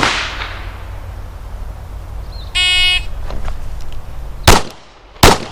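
A shot timer's short electronic beep about two and a half seconds in, then a double tap from a 9mm Glock 19 pistol: two loud shots about three-quarters of a second apart near the end. The echo of an earlier shot fades at the start.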